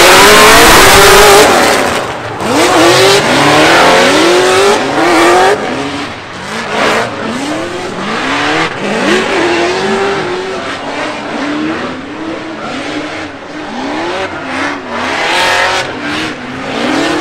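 Two drift cars, one of them a Nissan 350Z, in a tandem run: engines revving hard, their pitch rising and falling again and again as the drivers work the throttle through the slide, with tyre squeal that is loudest in the first two seconds.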